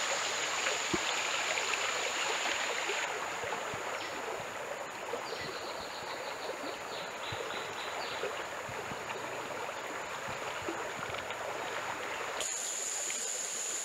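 Water running steadily, like a small stream, with a thin, steady high-pitched whine over it that fades for most of the middle and returns near the end.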